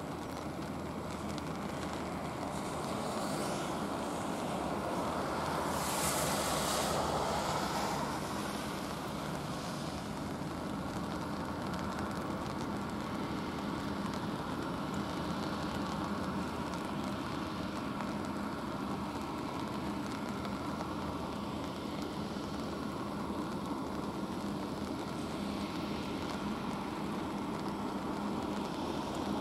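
Airbus A350-900's Rolls-Royce Trent XWB turbofan engines running at taxi power: a steady rushing hum with a low tone underneath, and a brief louder hiss about six seconds in.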